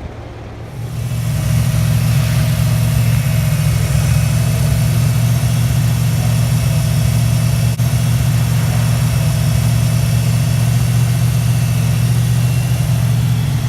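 Ford 5.0 small-block V8, freshly rebuilt with new head gaskets, idling steadily; it gets louder about a second in and then holds an even note.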